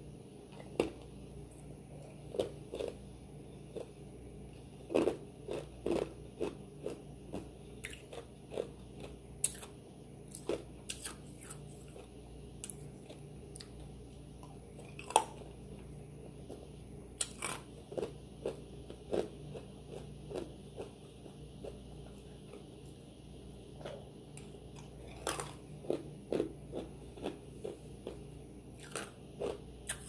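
A person chewing and biting food, with irregular wet smacks and sharp mouth clicks, several a second at the busiest moments.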